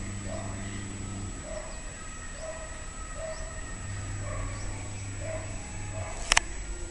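Short, soft animal calls repeating about once or twice a second over a low steady hum, with one sharp click near the end.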